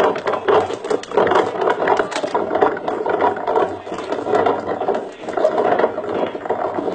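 Homemade all-wooden olive-cracking machine, worked by hand, running with a continuous dense wooden clatter of many small knocks.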